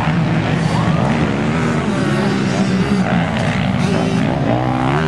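Motocross dirt bike engines running hard, the pitch climbing and dropping again and again as the riders rev and shift gears.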